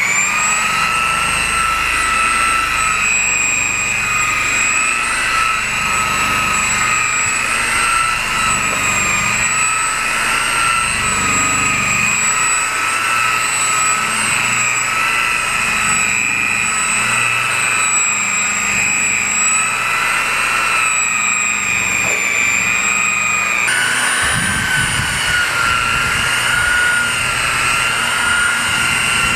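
Electric rotary polisher with a wool buffing pad running at a higher speed, a steady high motor whine as it buffs compound into oxidized fiberglass. Its pitch steps slightly higher about three quarters of the way through.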